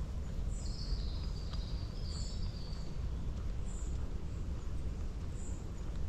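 Forest birds singing: a short high chirp repeated about every one and a half seconds, and a longer high warbling phrase in the first half, over a steady low rumble.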